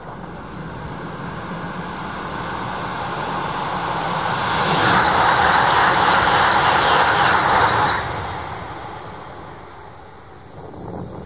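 E5 series Shinkansen passing at high speed: a rushing noise that builds for about five seconds, is loudest for about three seconds as the train goes by, then drops sharply and fades away.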